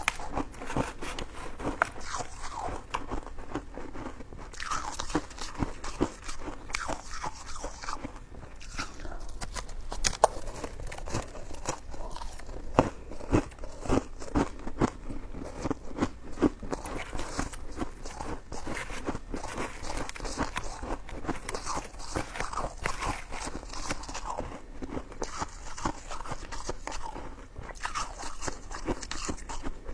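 A person chewing and biting coconut sticky rice cake close to the microphone: a continuous run of small wet clicks and smacks, with a few sharper bites around ten and thirteen seconds in.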